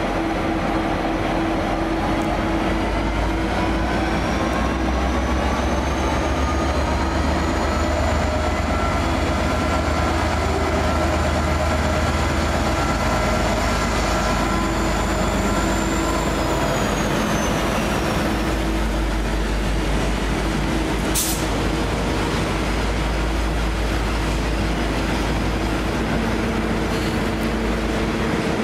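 Diesel locomotive running under a steady low rumble, with a whine that rises in pitch over several seconds, holds, then falls away. A single sharp click comes about three-quarters of the way through.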